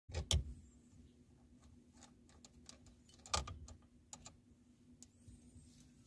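Scattered clicks and taps of small metal parts being handled at a steering wheel's hub, with two louder clicks near the start, another about three seconds in and a quick pair soon after, over a faint steady hum.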